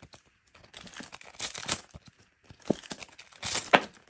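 Foil trading-card pack wrappers crinkling in several short, irregular rustles as hands rummage through a pile of packs.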